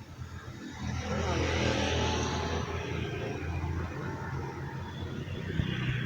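A motor vehicle passing close by on the road: its engine and tyre noise swells to a peak about two seconds in with a falling pitch, then eases into a steady low engine hum.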